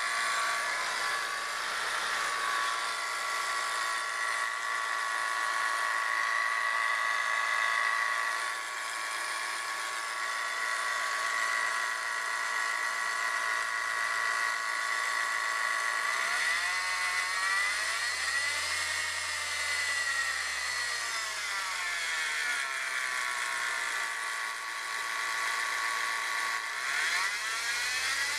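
2001 Saturn SL2 four-cylinder engine running with a steady high whine from a bad idler pulley, a noise that can pass for the camshaft sprocket. The engine is revved up and back down about two-thirds of the way in, and rises again near the end, the whine following the revs.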